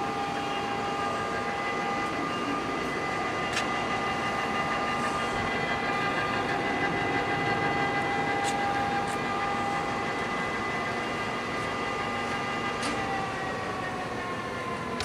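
Poreba TR135 lathe's headstock gearing running with a steady multi-tone gear whine and a few faint clicks. About thirteen seconds in the whine slowly drops in pitch and quietens as the spindle winds down.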